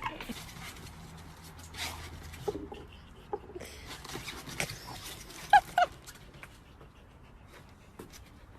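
An animal's short high calls, with two quick ones close together a little past the middle, over a quiet background with a few faint knocks.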